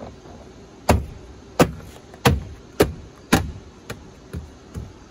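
Hand tapping around a Toyota Tundra's plastic door trim panel to seat it back on the door: a series of about eight sharp thumps, roughly two a second, growing softer toward the end.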